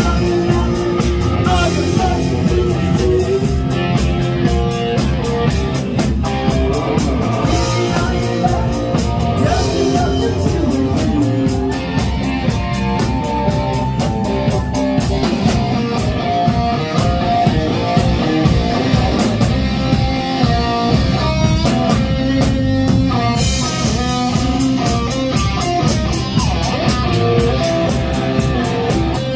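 A live rock band playing loudly: electric guitar over drums and keyboard, with a steady drum beat throughout.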